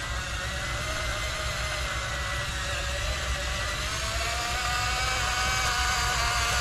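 Small electric motor of a radio-controlled construction model running with a steady whine, its pitch slowly rising.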